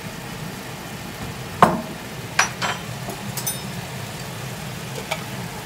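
Mushroom sauce sizzling in a frying pan over a steady low hum, with a few sharp clinks and knocks of a spoon against pan and bottle. The loudest knock comes about a second and a half in, with a short ring after it.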